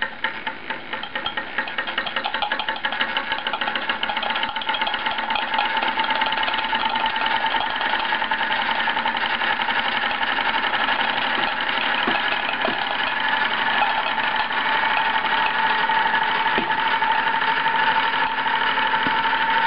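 Bowman M101 toy steam engine running: a rapid train of steam chuffs and mechanical clicks that speeds up and grows louder over the first few seconds, then runs steadily with a high steady whine underneath.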